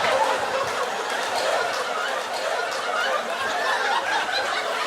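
Live comedy-club audience laughing.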